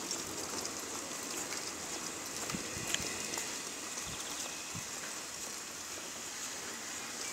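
Steady high hiss of outdoor background noise, with a few soft footsteps on the stone paving.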